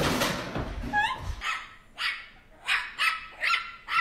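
An animal giving a run of about six short, sharp, bark-like calls, after a muffled rumbling noise and a few quick rising chirps in the first second or so.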